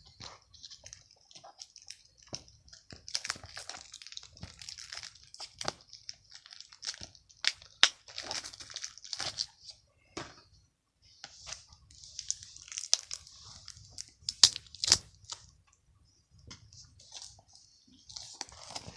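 DVD packaging being handled: crinkling plastic wrap with scattered sharp clicks and taps from the case.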